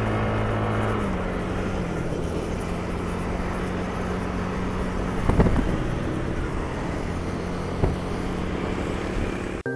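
Motorcycle engine running at a steady cruise, mixed with wind and road noise; its pitch steps down slightly about a second in. Two brief knocks come midway.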